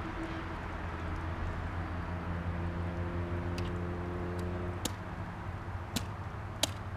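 A steady low mechanical hum, with several sharp clicks in the second half from metal fish-cleaning tools handled at the hook and rack.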